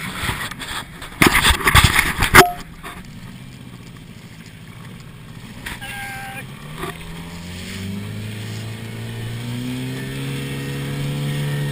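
Outboard motor on a small inflatable boat speeding up from about six seconds in, its pitch rising slowly and its level growing as the boat gets under way. Before that, a burst of loud knocks and rustling about a second in.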